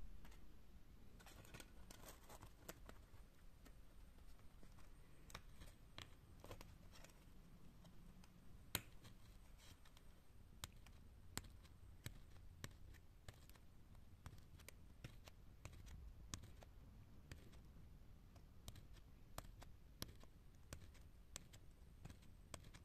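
Near silence with faint, scattered sharp clicks and crinkles: a pushpin pricking holes in aluminium foil, the foil rustling under the fingers.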